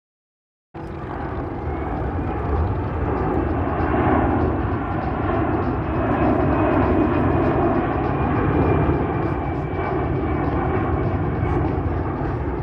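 Boeing C-17 Globemaster III's four Pratt & Whitney F117 turbofan engines running loud and steady as the heavy airlifter flies past slowly in its flaps-and-slats-down configuration, with a faint high whine over the rumble. The sound cuts in suddenly about a second in.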